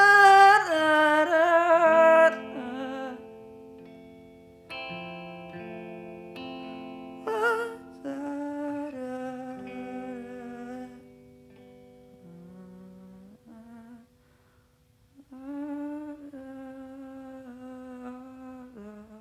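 Music: a wordless hummed melody over held notes, loud for the first two seconds and then quiet, with a brief drop-out about fourteen seconds in. It stops just before the end, at a break between songs.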